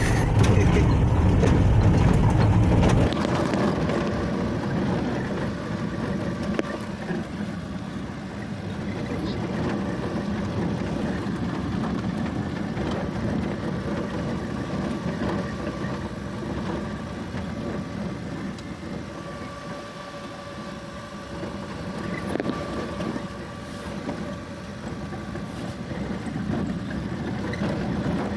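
Engine and road noise inside a car's cabin as it drives slowly over a dusty dirt road, with a heavier, louder rumble for the first three seconds before it settles to a steady drone.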